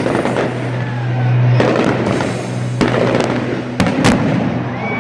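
Stadium fireworks going off in a series of about five sharp bangs, each followed by crackling, two of them close together near the end, with music playing underneath.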